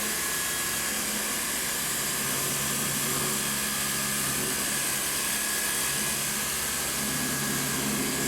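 Split air conditioner running after a fresh R22 refrigerant charge: a steady rush of fan air with a low, constant hum from the unit's motor and compressor.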